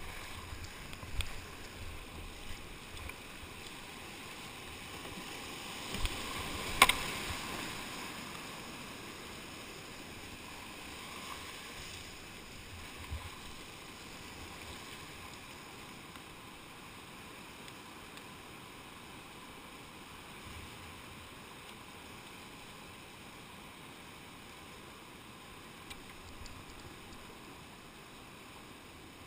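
Rushing whitewater of a boulder rapid, heard from a kayak, with a few sudden sharp hits in the first half, the loudest about seven seconds in. The rush eases as the boat comes out into calmer water.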